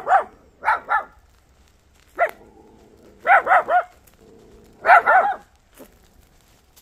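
A stray dog barking in warning at a person approaching, in five short bouts of one to three barks each with pauses between.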